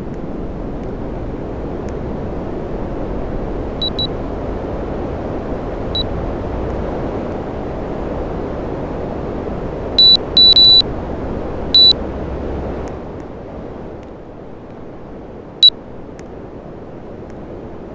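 Air conditioner blowing air with a steady rushing noise, broken by the unit's short electronic beeps: a double beep about four seconds in, single beeps later, and a longer beep about ten seconds in. The airflow noise drops quieter about thirteen seconds in.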